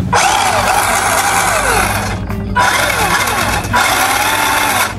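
Electric motor and geared drivetrain of a WPL D12 RC pickup truck whirring as the throttle is pulled with the wheels in the air. There are two bursts of about two seconds each, with a whine that rises and then falls. The geared rear axle makes it fairly loud and noisy.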